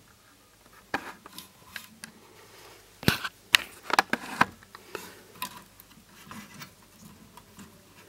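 Light clicks and taps from hands handling a small voltage-regulator circuit module and its wires on a TV motherboard, with a few sharp clicks about a second in and a cluster of them around three to four seconds in.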